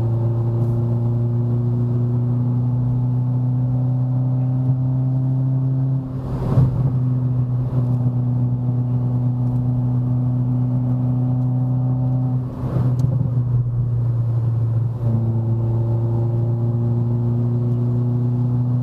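Renault Sandero RS's four-cylinder engine and exhaust, running without a final muffler, droning loudly at steady revs under load on a climb. Twice, about six and twelve seconds in, the note briefly breaks and comes back at the same pitch.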